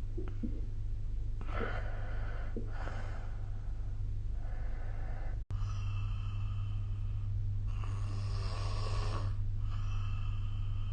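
A person snoring through several breaths in a row over a steady low hum, with a split-second dropout about halfway through.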